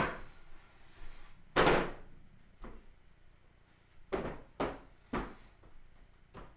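Knocks and thumps of a wooden kitchen chair being moved and bumped against the kitchen units: a sharp knock at the start, a heavier thump just under two seconds in, then three or four quicker knocks in the second half.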